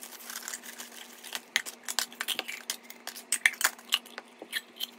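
Nested titanium mugs and a titanium mug pot clinking and tapping against each other as the set is unpacked. The sound is played at four times speed, so the handling comes as a rapid patter of sharp clicks.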